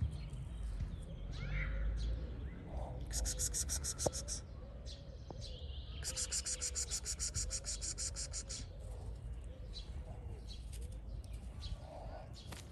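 Outdoor ambience: two bursts of a fast, high-pitched pulsing trill, one about a second long and one nearly three seconds long, over a steady low rumble.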